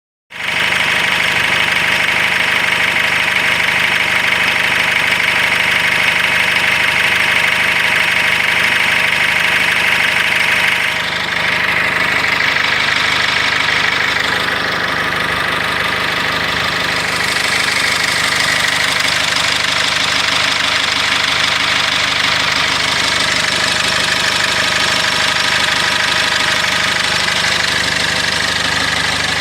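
Cummins ISF 2.8 four-cylinder turbodiesel of a GAZelle Next van idling steadily, with a slight change in its sound about 11 seconds in.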